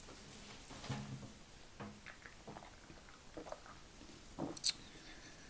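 Quiet sipping from a drink can and small eating sounds: faint scattered clicks and rustles, with one sharp click about four and a half seconds in.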